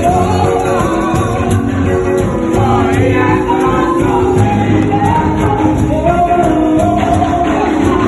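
Gospel music: voices singing over a steady beat with tambourine.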